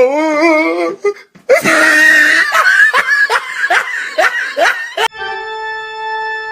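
Meme sound effects in quick succession: a warbling, wavering voice for about a second, then loud laughter in regular pulses for about three and a half seconds, then a steady held electronic tone that cuts in suddenly near the end.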